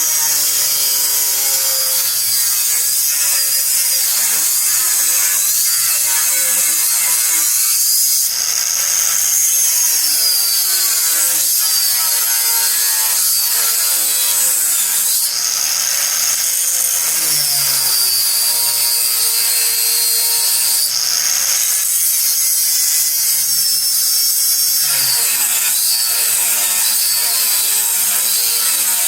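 Angle grinder with an abrasive cut-off wheel cutting sheet steel: a loud, steady grinding hiss with a motor whine that sags and recovers as the wheel bites into the metal.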